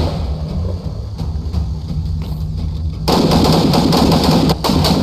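Gunfire from QBZ-95-1 bullpup rifles firing 5.8 mm rounds: a few lighter shots, then about three seconds in a dense run of rapid, loud shots from more than one rifle.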